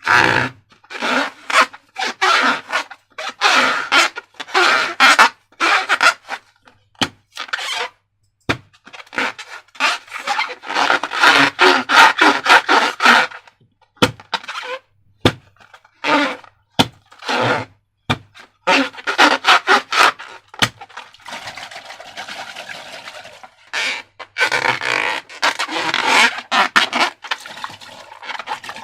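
Slime being squished and worked by hand: irregular runs of wet, sticky crackling and squelching with short silent gaps and a few sharp clicks.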